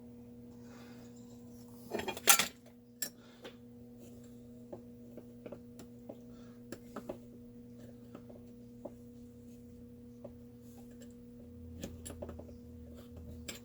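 Hand tools and small metal chainsaw parts clinking and tapping during reassembly, with a louder metallic clatter about two seconds in and scattered light clicks after. A steady low electrical hum runs underneath.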